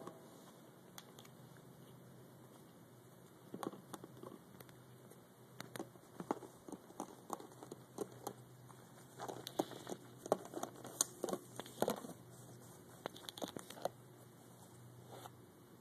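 Thin plastic water bottle crinkling and clicking irregularly as a small dog paws at it and mouths its open neck. The crackles come in clusters and are busiest past the middle.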